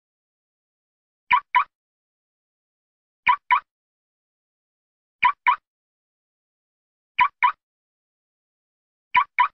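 A car being locked with its remote key fob: a quick double chirp, the two short sounds a quarter-second apart, repeated five times about every two seconds.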